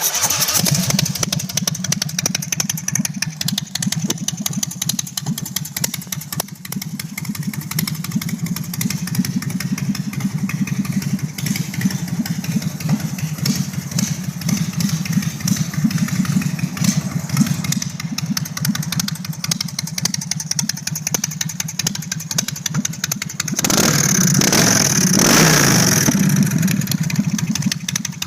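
A 2004 Big Dog Bulldog motorcycle's 1753 cc (107 cubic inch) S&S carbureted V-twin fires up and idles steadily. Near the end it is blipped louder for about three seconds, then drops back to idle.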